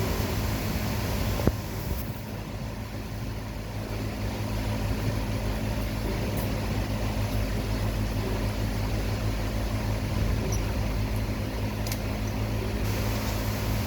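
Steady low mechanical hum with a sharp click about a second and a half in and a few faint ticks later.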